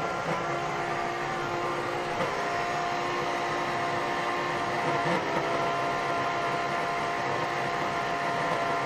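Old shop vacuum's motor running steadily with an even whine, being left to run on until it gives out.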